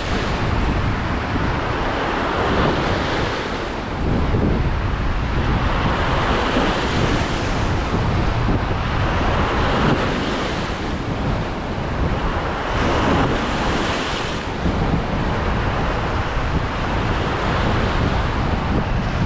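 Sea surf washing in and out, swelling every few seconds, with wind buffeting the microphone.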